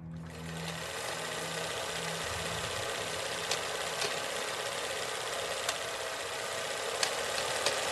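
Film projector sound effect: a steady mechanical whirring hiss with a few scattered clicks and pops.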